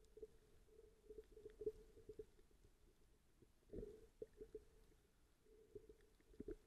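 Near silence from a camera recording underwater: a faint steady hum with scattered small clicks, and two muffled low thuds, one a little past the middle and one near the end.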